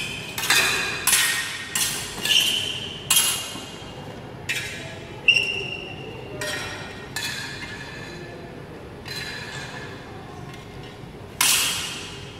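Steel swords and metal bucklers clashing during sword-and-buckler sparring. About a dozen sharp metallic clinks come at irregular intervals, several of them ringing briefly, and the loudest clash comes near the end.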